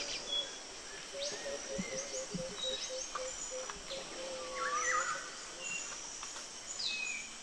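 Tropical forest ambience: several birds calling with short whistled notes and downward-sliding chirps, and a repeated low whistle from about a second in to about five seconds, over a background of insects.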